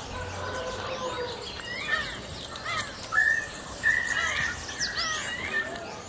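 Several bird species calling and singing at once: quick up-and-down chirps, high sweeping whistles and low repeated arched notes, with two louder held whistles a little after three and four seconds in.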